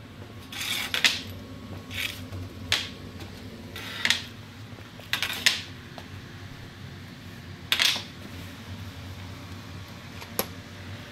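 Metal-framed, wire-laced military surplus snowshoes clacking and scraping on a concrete floor as they are walked on, about seven irregular steps.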